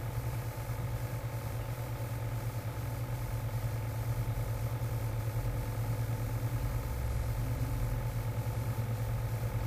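A steady low mechanical hum with a slight fast pulsing, from a motor or fan running.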